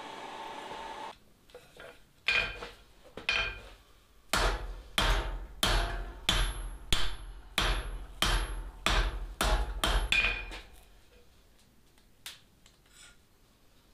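Hand hammer striking a red-hot steel bar on an anvil. Two single blows come first, then a run of about a dozen blows at roughly two a second, each with a short high ring from the anvil.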